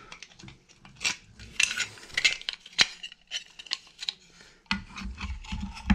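Small metal parts of a chainsaw muffler (muffler body, cover plate, spark arrestor and bolts) clinking and clicking as they are handled and fitted together by hand. The clicks are short and irregular, the sharpest a little under three seconds in.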